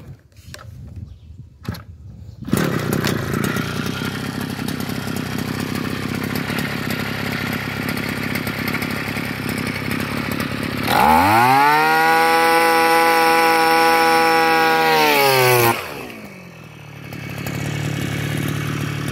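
Small petrol engine of a Kaaz tree-planting hole-drilling machine (earth auger) comes in about two and a half seconds in and runs at idle. It is then revved up sharply, held at high revs for about five seconds, and dropped back to idle.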